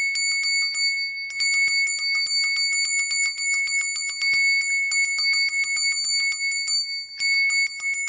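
Small metal bell hung inside a folded-paper origami hand bell, shaken so that it rings rapidly at one high pitch, several strikes a second. The ringing pauses briefly two or three times.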